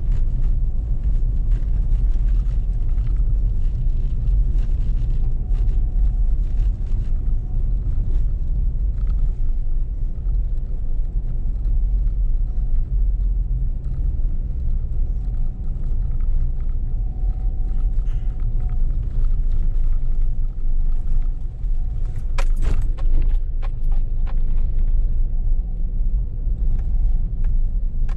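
Steady low rumble of a vehicle driving, engine and road noise heard from inside, with a short burst of clicks or rattles about 22 seconds in.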